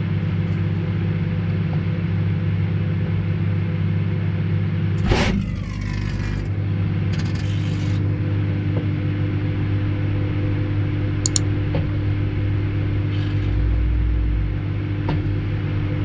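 Microwave oven running with a steady mains hum while a full butane lighter inside it fails. About five seconds in there is a sharp pop followed by a falling whoosh as the lighter vents and its gas catches fire, then a short hiss and a few small pops and clicks.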